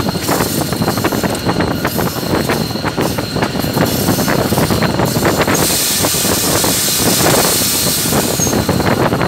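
Old GE diesel locomotive running along the track, heard from its front end: a steady rumble with constant rattling and knocking of the wheels on the rails, and wind buffeting the microphone. A stronger hissing rush comes for a second or so past the middle.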